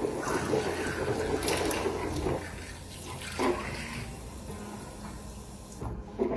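Liquid swishing around inside a person's mouth: rinsing with mouthwash. It is louder for the first couple of seconds, then quieter, with a brief louder splash about three and a half seconds in.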